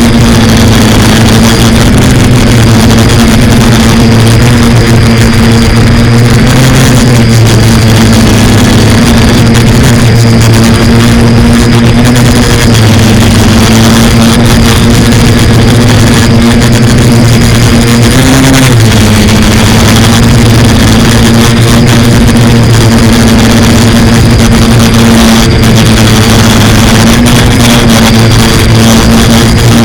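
Quadcopter's electric motors and propellers whirring steadily at a hovering or cruising throttle, very loud and close, with small shifts in pitch and a brief dip in pitch about two-thirds of the way through.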